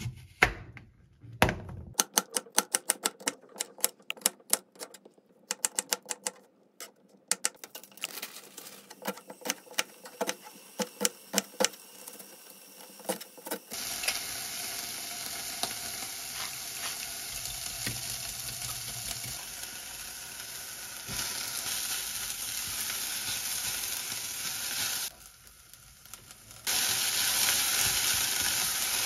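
Kitchen knife chopping a carrot on a plastic cutting board: quick, uneven knocks, faster towards the middle. About 14 seconds in this gives way to diced onion and carrot sizzling in a saucepan, a steady hiss that drops out briefly and returns louder near the end as the vegetables are stirred with a spatula.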